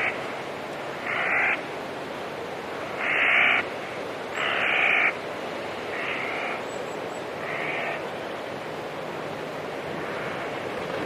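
An animal calling in short, banded calls about six times at uneven intervals, loudest about three to five seconds in and fading toward the end, over a steady rushing background of water or wind.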